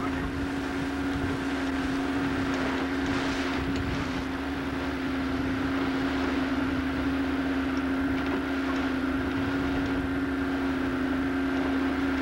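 Motorboat engine running at a steady pitch while the boat cruises, with a constant hum over a rush of wind and water.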